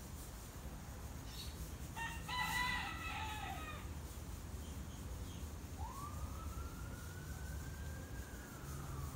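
A rooster crows once, about two seconds in, the loudest sound here. From about six seconds a siren wails, its pitch rising and then slowly falling.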